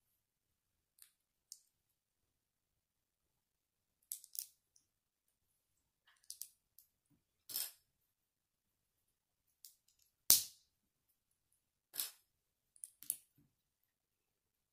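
Small plastic Lego bricks clicking as they are handled and snapped together by hand: a dozen or so short, sharp clicks at irregular intervals, the loudest about two-thirds of the way in.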